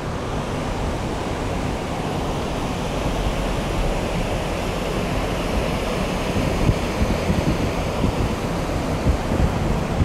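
Steady rushing of a shallow river running over rocks, with wind buffeting the microphone.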